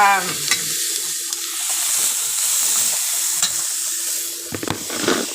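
Onions and green peppers sizzling as they fry in garlic butter in a pan, with a spatula stirring through them and a few knocks and scrapes against the pan near the end.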